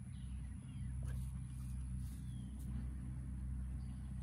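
A steady low hum, like a motor or engine running at a distance.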